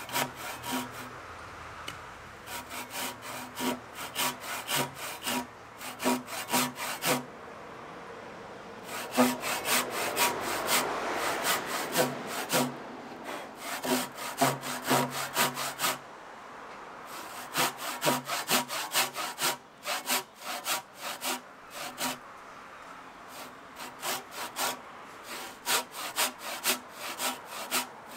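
A Japanese ryoba pull saw rip-cutting along the grain of a hinoki (Japanese cypress) beam, in quick regular strokes of about two a second with a few short pauses. It is roughing out the cheek of a dovetail joint about a millimetre off the line.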